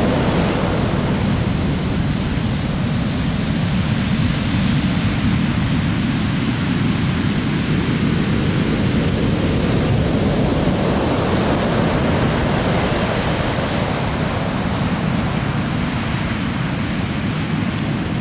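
Atlantic surf breaking on a sandy beach: a continuous rush of breaking waves and foam washing up the sand, swelling again about halfway through as another wave comes in.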